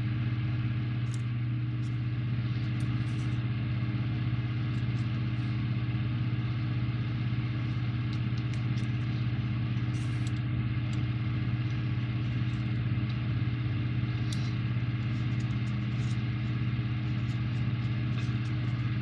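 A steady low hum with a few pitched tones in it, unchanged throughout, with faint, scattered light clicks and taps of small plastic model parts being handled.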